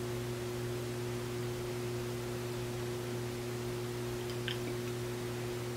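Steady low electrical hum over faint hiss, with one faint tick about four and a half seconds in.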